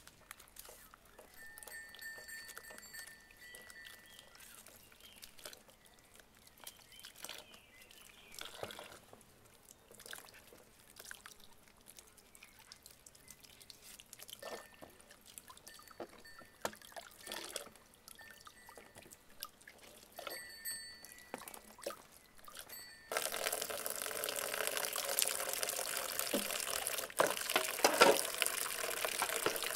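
Faint background with a few short bird chirps, then, about three quarters of the way in, water starts splashing and dripping into a plastic bowl as a head of lettuce is washed by hand. The water is much the loudest sound.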